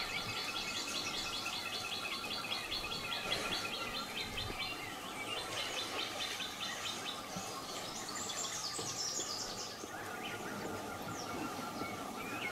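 Rainforest chorus of birds and insects: a fast rhythmic chirring call that fades out about six seconds in, then a higher rhythmic call around eight to ten seconds, over a faint steady insect drone.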